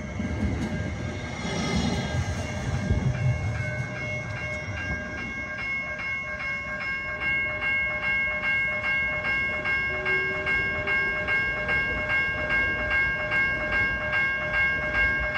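Siemens S700 light rail train rumbling past, then pulling away. From about three seconds in, an electronic crossing warning bell rings in quick, even strokes that grow stronger and then stop abruptly at the very end.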